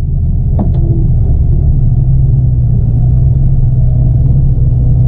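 Tractor-trailer truck's diesel engine idling steadily, a constant low hum with no revving.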